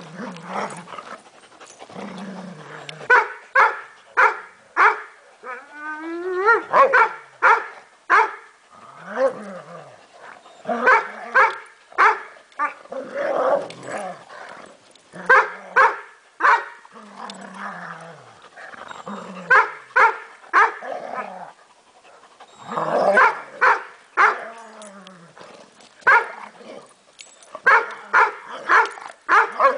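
Weimaraners at rough play: play barks in quick clusters of three or four every few seconds, with lower growl-like sounds and a rising whine between them, a dog urging a tired playmate to play.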